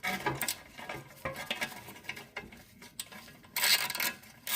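Hand tools clinking and scraping on the snowblower engine's sheet-metal tin as a stuck bolt is worked loose: irregular metallic clicks, with a louder scraping rattle near the end.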